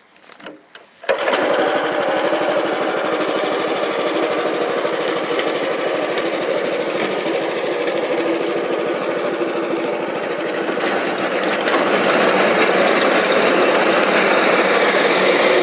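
Kisan Kraft SPR-1205P paddy reaper's 4.5 HP petrol engine coming on about a second in and running steadily as the reaper's cutter bar works through standing paddy, a little louder for the last few seconds.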